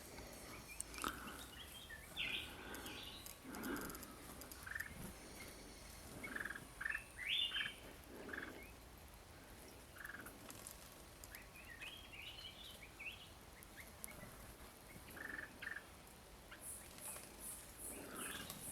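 Birds calling: short, clipped notes in small clusters, the loudest about seven seconds in, and near the end a fast run of very high chirps.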